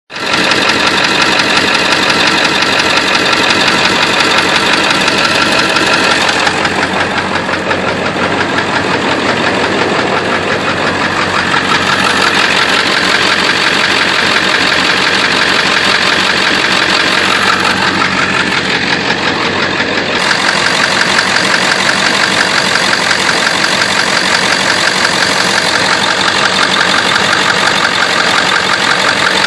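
Engine idling with a fast, steady tapping, which the owner wonders may be a bad fuel injector.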